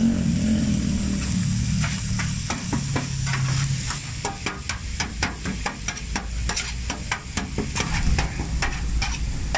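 Meat sizzling and steaming on a street-taco steel griddle pan, with a metal spatula scraping and clicking rapidly against the steel as the meat is stirred and turned. A low drone is heard at first and fades out within the first few seconds.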